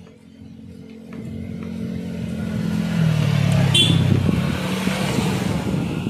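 A motor vehicle's engine close by, growing louder over the first three seconds as its note falls in pitch, then staying loud, with a brief high squeak about four seconds in.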